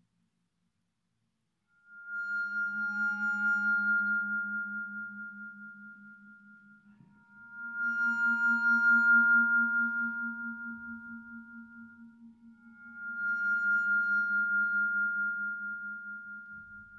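Vibraphone and suspended cymbal sounding three long, ringing metallic tones, the first about two seconds in. Each swells in gently and fades over about five seconds, with a steady pulsing waver.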